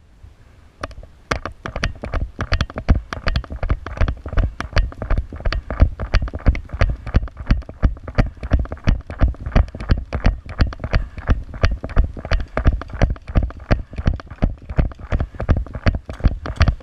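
Running footsteps heard through a body-worn camera: heavy, even thumps about five a second with gear jostling. They start about a second in.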